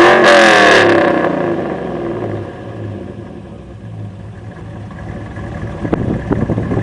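Classic Range Rover V8 on petrol, revved hard with the revs swinging up and down, then dropping back to a low steady idle about a second in. Near the end, irregular thumps and crackles of wind buffeting the microphone come over the idle.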